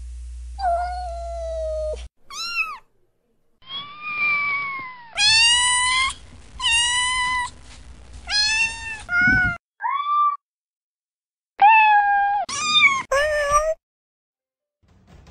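Domestic cats meowing: about a dozen separate meows of differing pitch and length, some drawn-out and some short and high, cut together with sudden breaks between them.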